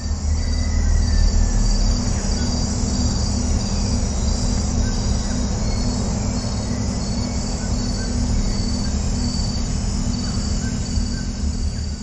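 Rainforest ambience: a dense chorus of insects trilling in an even, pulsing rhythm, with a few short bird chirps, over a low steady hum.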